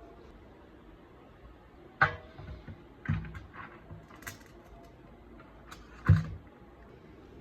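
Cookware being handled, giving a few sharp knocks and clatters: one about two seconds in, a short run of smaller ones around three to four seconds, and the loudest about six seconds in.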